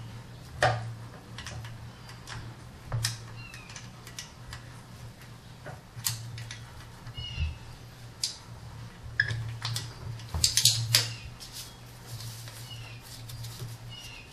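Scattered metal clinks and taps of a socket on an extension and swivel being worked onto a small 10 mm nut deep in an engine bay, with a quick cluster of clicks about ten seconds in. Several short, high chirp-like squeaks come and go between them.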